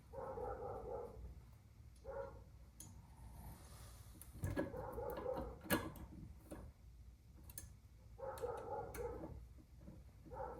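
A dog whining in several drawn-out cries, most about a second long, with a few sharp light clicks and taps in between.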